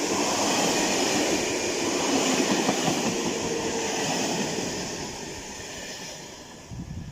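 A train hauled by two coupled SNCF BB 67200 diesel locomotives runs past; its wheels rumble on the rails, and the sound fades away over the last couple of seconds. A few low knocks come near the end.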